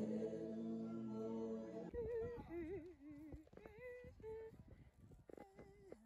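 Faint singing: held notes for about two seconds, then a single voice humming short wavering phrases that trail off.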